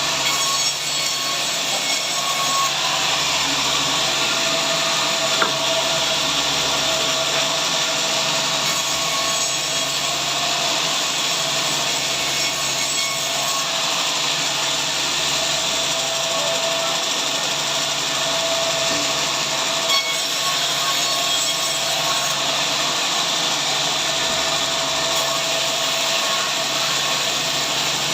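Sawmill saw running steadily through timber, a constant mechanical whine over the hiss of the cut.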